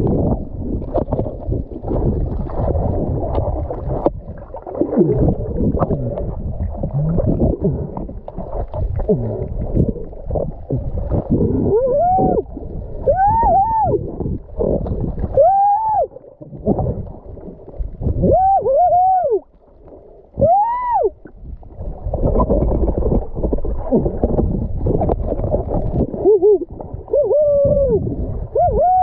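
Muffled underwater noise: low rumbling, sloshing and bubbling. From about twelve seconds in it is joined by a series of short hoots that rise and fall in pitch, made by a person's voice heard underwater.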